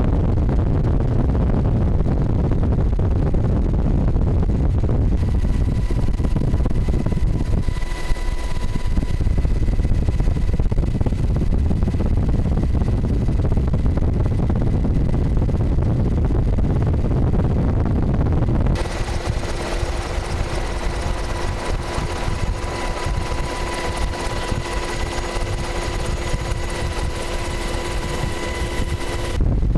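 News helicopter running steadily: a heavy low rumble with some steady whining tones, the sound changing abruptly a few times.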